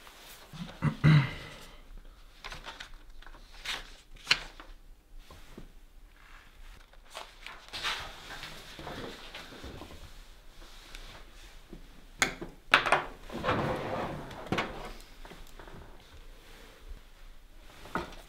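Scattered handling noises in a small room: short knocks, clicks and rustles, with a louder cluster about a second in and another near twelve to thirteen seconds in.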